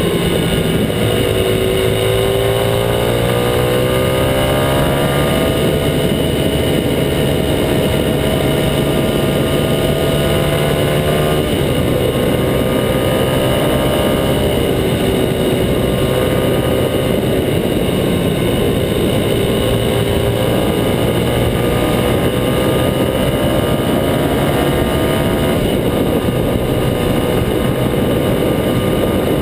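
Kawasaki KLX250SF's single-cylinder engine through a Muzzy aftermarket exhaust, pulling along at road speed with a steady rush of wind. Its pitch climbs over the first few seconds, changes abruptly about eleven seconds in, and climbs again from about twenty seconds.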